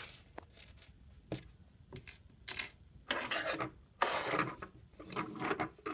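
Hands handling and rummaging through small plastic Lego pieces: a few light clicks at first, then, about three seconds in, bursts of rustling and scraping.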